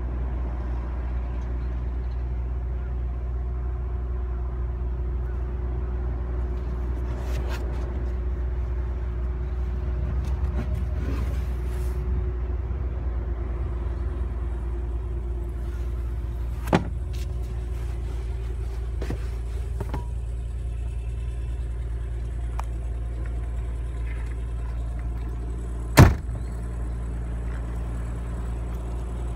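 Nissan Fairlady Z Turbo's twin-turbo V6 idling with a steady low hum. There is a short knock about two-thirds of the way through and a louder thump near the end.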